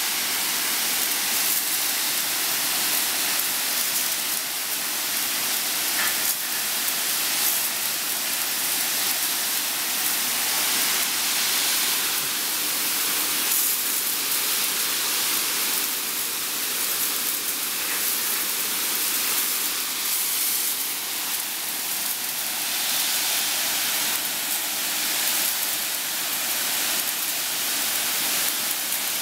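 Water jets spraying from the nozzles of a railway bogie and wheelset washer inside its enclosed wash cabinet: a steady hissing rush of spray.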